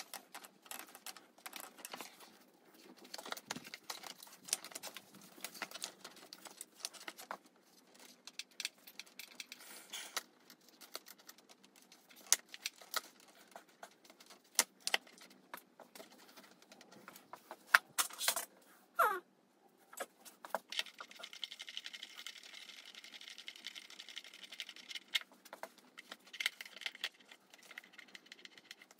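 Plastic and metal parts of a motorcycle airbox being handled: many small irregular clicks, knocks and rattles. About two-thirds through comes a short falling squeak, followed by a few seconds of scraping.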